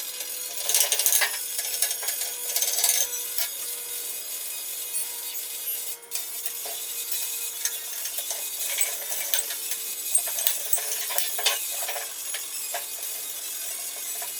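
Hand tools and metal parts being handled during disassembly: scattered clinks and knocks, with two louder scraping stretches near the start.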